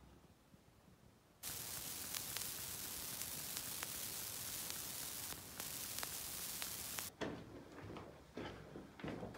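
A steady static hiss flecked with fine crackles starts abruptly about a second and a half in and cuts off suddenly about seven seconds in. Softer irregular knocks and scuffs follow near the end.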